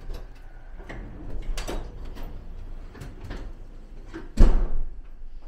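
A hotel room door being handled: a string of clicks and knocks from the latch and handle, then a heavy thud about four and a half seconds in as the door shuts.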